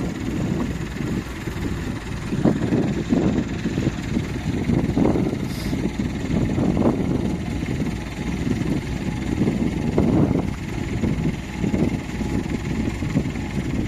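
Engine of a stuck Massey Ferguson crawler tractor running steadily, with wind buffeting the microphone.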